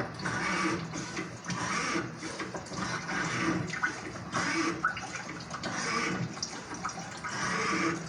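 Storm rain and wind, a rushing noise that swells and fades about once a second.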